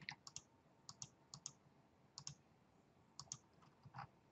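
Faint computer mouse clicks, a quick irregular string of them, many in close pairs, as lines are picked one after another to trim them in a CAD program.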